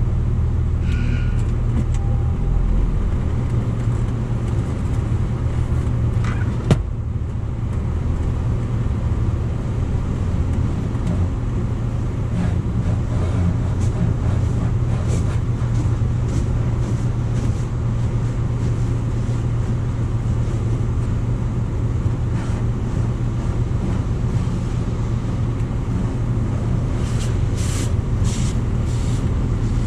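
MacNeil car wash tunnel running, heard from inside the car's cabin: a steady low hum with water spray hitting the windshield and body. There is one sharp click about seven seconds in, and a series of short, hissing spray bursts near the end.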